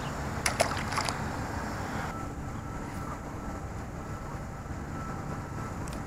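A small rock bass tossed back into the river, with a brief splash about half a second in, followed by a steady rush of wind and open-air background noise.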